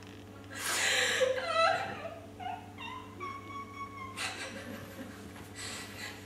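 Breathy, sigh-like vocal sounds and short whimpering tones from a person. The loudest breathy burst comes about a second in, followed by pitched tones that step downward and then hold, over a steady low hum.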